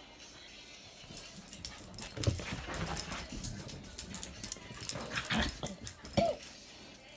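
Dogs playing roughly at close range: scuffling and short dog noises, with a brief yip about six seconds in.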